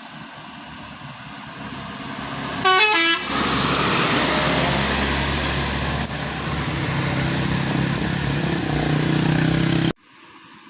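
A bus approaching and passing close, sounding a telolet multi-tone horn about three seconds in as a short, quick run of stepped notes. Its engine stays loud afterwards, and the sound cuts off abruptly near the end.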